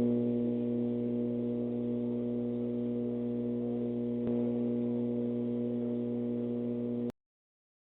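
A steady low-pitched hum with several overtones, holding one pitch, with a slight swell about four seconds in, then cutting off abruptly about seven seconds in.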